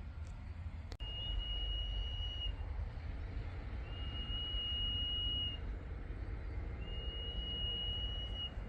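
Common iora giving three long, level whistles, each held about a second and a half, with a couple of seconds between them. A steady low rumble runs underneath.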